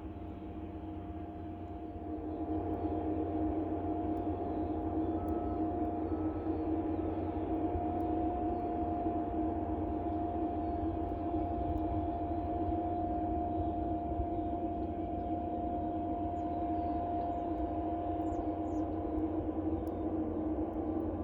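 Steady mechanical drone with several held tones over a low rumble, growing louder about two seconds in and then holding steady.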